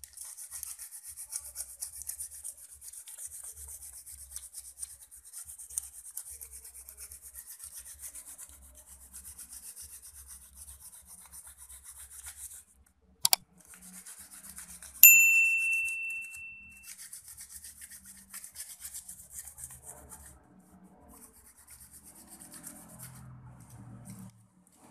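Aluminium foil paper rubbed quickly back and forth over a wet remote-control circuit board, a fast scratchy scraping that scrubs dirt off the button contacts. About halfway through, the scrubbing breaks off for a sharp click and then a single bell-like ding that rings out for a couple of seconds, from an on-screen subscribe-button animation. The scrubbing then goes on, fainter toward the end.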